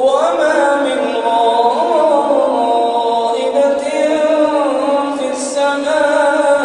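A man's voice reciting the Quran in melodic tajweed chanting, holding long notes that slide up and down in pitch.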